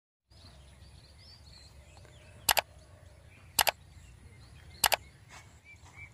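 Three sharp computer-mouse click sound effects, each a quick press-and-release double click, about a second apart, over quiet outdoor background with small birds chirping.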